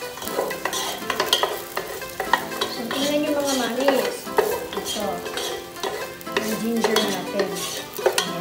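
Wooden spatula stirring and scraping in a nonstick pot, with many short knocks and scrapes, while minced ginger sizzles gently in sesame oil on low heat.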